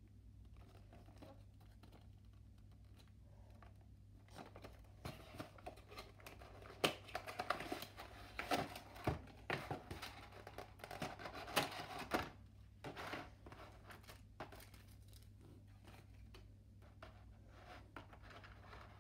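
Plastic packaging of a die-cast model airliner being handled: crinkling and rustling of the clear plastic cover and tray with many sharp clicks, busiest from about four to twelve seconds in, then a few quieter ticks and taps.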